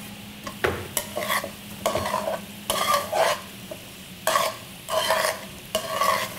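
A metal utensil stirring and scraping vegetables sautéing in a skillet over a light sizzle, in irregular strokes about once a second.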